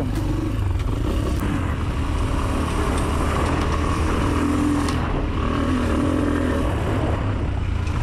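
Tekken 250 cc enduro motorcycle's engine running steadily while the bike is ridden.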